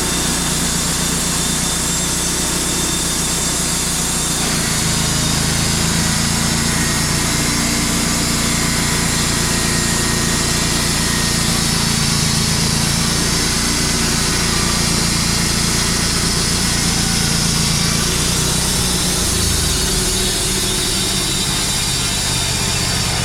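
An engine running steadily under load, its low hum shifting in pitch about four seconds in and again near the end.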